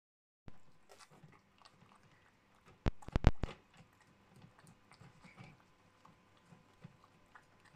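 A cat licking wet food from a small plastic cup: soft, quick, repeated wet clicks of the tongue. A quick cluster of sharp knocks comes about three seconds in.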